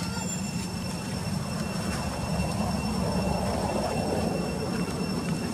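Steady low rumble with faint, steady high-pitched tones above it, a little fuller in the middle range from about three seconds in.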